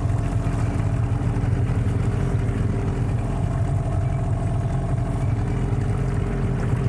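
Boat's outboard motor running at a steady speed, an even low hum.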